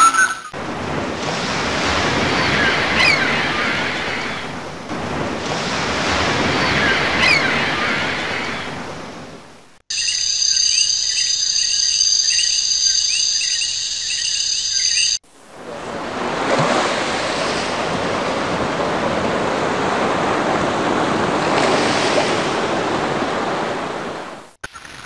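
Ocean waves washing in and drawing back in slow surges, with a few faint bird chirps. From about ten to fifteen seconds in, the waves cut out for a separate clip of high, steady chirping, and then the waves return.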